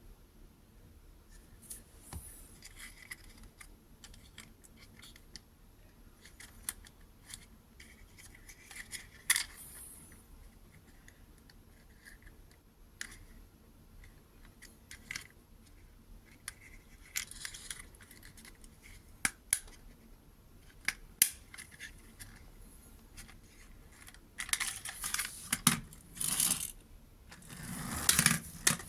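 Toys and their packaging being handled: scattered small clicks and taps, then louder rustling and crinkling near the end.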